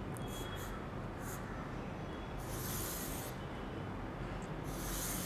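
Chalk scratching on a small handheld slate as a number is written: a few brief strokes, then two longer ones about two and a half and five seconds in.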